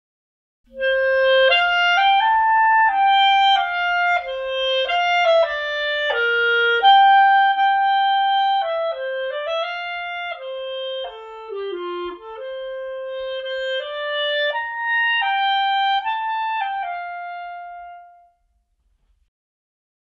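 Closing music: a solo instrumental melody, one note at a time, stepping up and down in pitch. It starts about a second in and stops shortly before the end.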